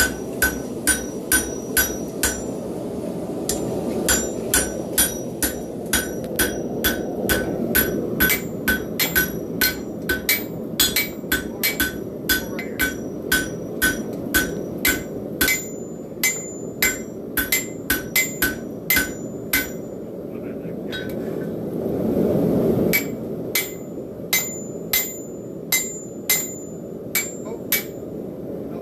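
Hand hammer blows forging a hot railroad spike on an anvil, the steel ringing with each strike at about two to three blows a second. The hammering pauses briefly about three seconds in and again for a couple of seconds around twenty seconds in, over a steady low rush.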